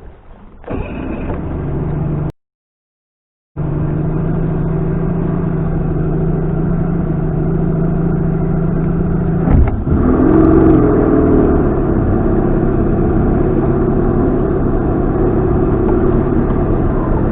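Boat outboard motor running steadily. The sound cuts out for about a second near the start; about nine and a half seconds in there is a sharp clunk, and the engine speed briefly rises before settling back to a steady run.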